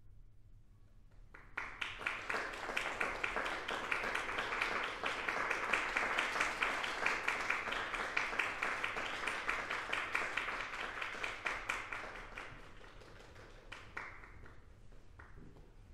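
Audience applause that starts suddenly about a second and a half in, holds as a dense patter of many hands clapping, and dies away over the last few seconds with a few scattered claps.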